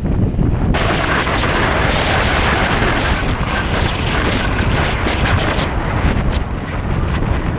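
Wind rushing over a mountain biker's action-camera microphone along with tyre noise on pavement: a loud, steady rushing hiss over a low rumble that starts suddenly under a second in and eases near the end.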